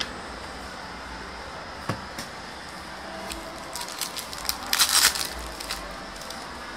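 A foil trading-card pack being torn open and its wrapper crinkled: a cluster of sharp crackling from about four to six seconds in, after a couple of light clicks near two seconds.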